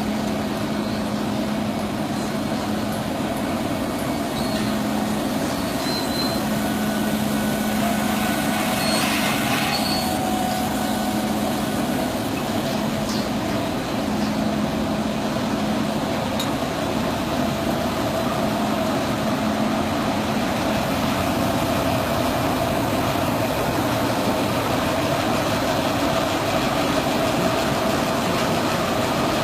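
Welding cable production line machinery running steadily: a continuous mechanical drone with a constant hum, and a brief hiss about nine seconds in.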